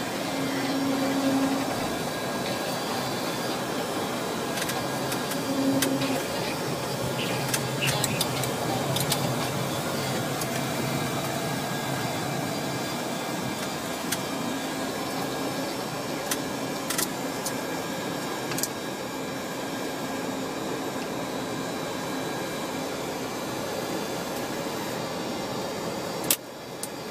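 Steady cockpit noise of a Boeing 737-200 taxiing, its Pratt & Whitney JT8D turbofans at low power, with a few sharp clicks. The noise dips abruptly near the end.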